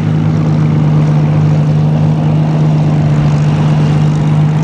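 Supermarine Spitfire's Rolls-Royce Merlin V12 engine running steadily at low power while taxiing, an even deep drone.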